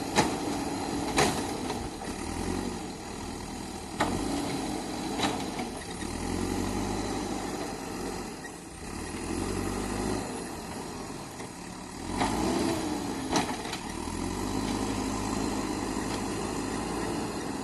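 JCB 3DX backhoe loader's diesel engine running under load, swelling in pitch three times as the hydraulics work. Each swell brings a pair of sharp knocks about a second apart.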